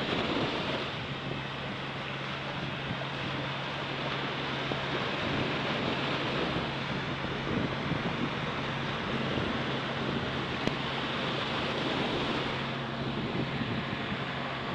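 Small surf breaking and washing up the sand at the water's edge, with wind on the microphone and a steady low hum underneath.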